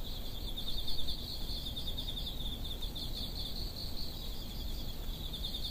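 Crickets chirping: a steady, fast-pulsing high trill with a faint low rumble beneath.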